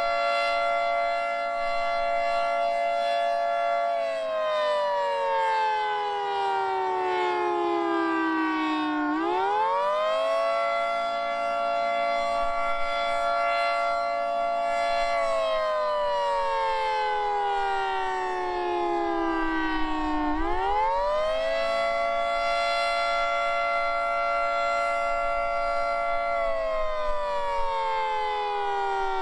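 Federal Signal 2T22 two-tone rotating outdoor warning siren sounding the Attack signal, a wail: its chord rises quickly, holds for about five seconds, then slides down over about five seconds, repeating about every eleven seconds. Wind rumbles on the microphone underneath.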